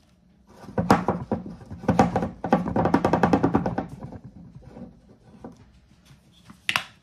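Plastic ketchup squeeze bottle sputtering as it is squeezed, air and ketchup spurting from the nozzle in a rapid, buzzing rattle that dies away after a few seconds. A sharp knock comes near the end.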